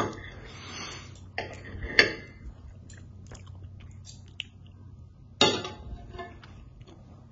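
Knife and fork clinking and scraping on a plate while a pancake is cut, a few sharp clinks with the loudest about two seconds in and again about five and a half seconds in, and light ticks between.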